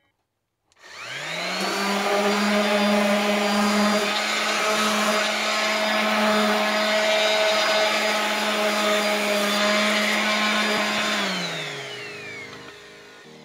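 DeWalt random orbital sander spinning up about a second in and running steadily while sanding a wooden block, then winding down as it is switched off near the end.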